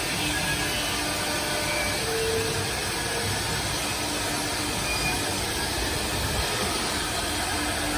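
Steady running drone of a CNC router's machinery, with a faint steady hum under it.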